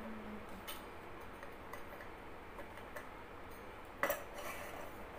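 Small clicks and taps from the parts of a ring light's stand and phone mount being handled during assembly, with one louder knock a little after four seconds in.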